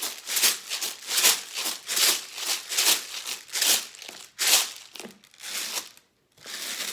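A homemade rain shaker, a lidded plastic bottle with rice inside, shaken in a steady rhythm of about two to three shakes a second, the rice rattling against the plastic. The shaking stops briefly near the end, then starts again.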